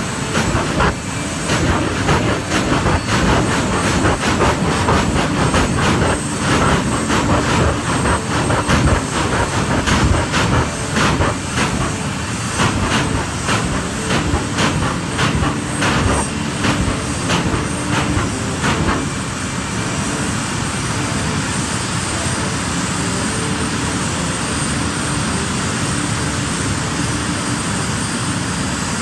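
Jet dragster's turbine engine running at the starting line: a loud, steady noise with a high whine on top. For the first two-thirds it is broken by rapid, irregular crackling and popping, then it settles into a smoother steady noise.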